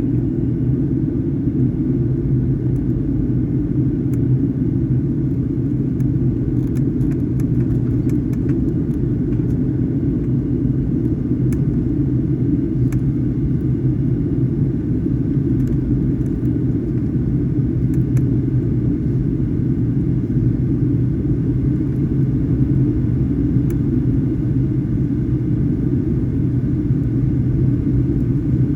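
Steady low rumble of a Boeing 737-800 in flight heard from the passenger cabin: engine and airflow noise, even in level throughout, with a few faint ticks.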